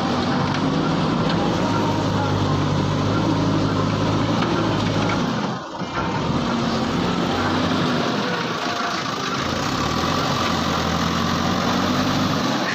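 Heavy diesel engine running steadily, with a brief drop in level about halfway through.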